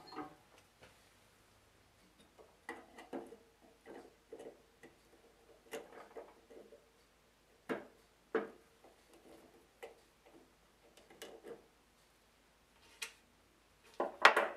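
Irregular small clicks and light metallic clatter as snap-ring pliers work the snap ring that holds a band saw wheel on its axle. The loudest clatter comes near the end.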